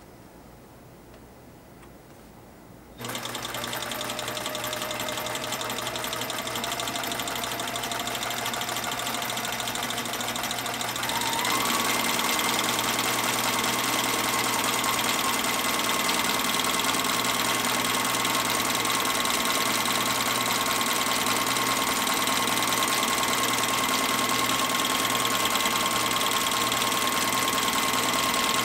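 Sailrite Ultrafeed LSZ-1 Premium walking-foot zigzag sewing machine, driven by its WorkerB servo motor, starts stitching about three seconds in with a steady motor whine and a rapid needle rhythm. It picks up speed slightly, then steps up to a faster steady speed around eleven seconds in.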